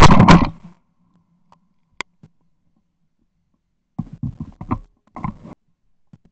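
A shotgun shot fired right at the microphone, very loud and sudden, dying away in under a second. A single sharp click follows about two seconds in, then a cluster of softer knocks and thumps between about four and five and a half seconds in.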